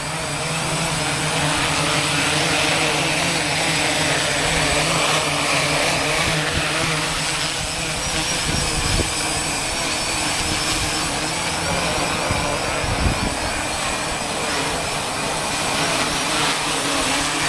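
Small 3D-printed drone's propellers and motors whirring in flight, a steady pitched hum over a broad rushing noise, with wind on the microphone.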